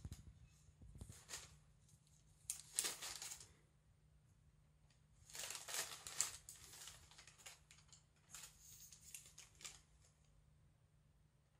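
Paper bag crinkling and rustling as a cat pushes its head in and paws at it, in three bursts: about three seconds in, around six seconds and around nine seconds.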